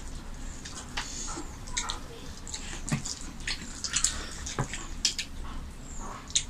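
Wet eating sounds of rice and chicken curry eaten by hand: irregular smacks, squelches and clicks from mouths chewing and fingers kneading the rice on the plates.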